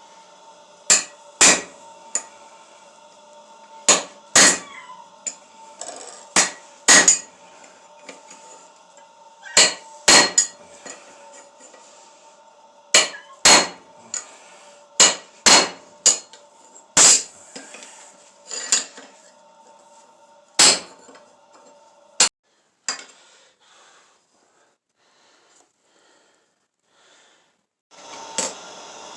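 Hand hammer striking steel on an anvil: irregular ringing blows, some in quick pairs, with pauses between groups. A steady hum runs under the blows and cuts off about two-thirds of the way through, leaving only faint sounds until a hiss returns near the end.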